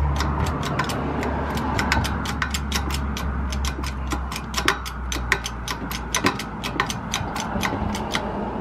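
Quick light metallic clicks, several a second and uneven, as a jackshaft bearing and the socket pushing it are worked into place under a hydraulic shop press. A low steady hum underneath fades out about halfway through.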